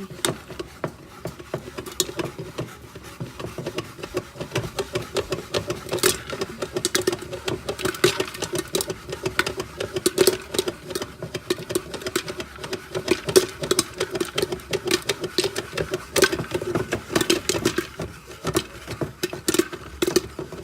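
Popcorn kernels popping fast and irregularly in a covered pot of hot oil, many sharp pops a second at the height of popping, over a steady hum.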